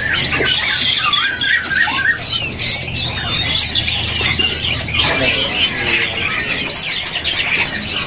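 Caged songbirds singing and chattering: quick warbling phrases that wander up and down in pitch, mixed with harsh squawks. A steady low hum runs underneath for about the first five seconds.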